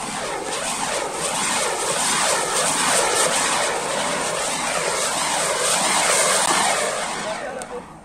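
Anaar flowerpot fireworks hissing as they spray sparks while spinning on a ceiling fan's blades, the hiss swelling and dipping about twice a second as they turn. It stops abruptly near the end.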